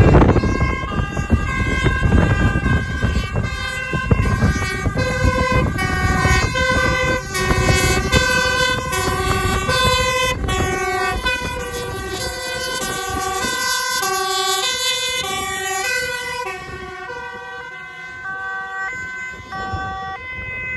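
Several fire engines' two-tone sirens sounding together, each switching between a high and a low note about twice a second, out of step with one another, over heavy engine and tyre rumble that dies away about halfway through. The sirens fade somewhat in the last few seconds.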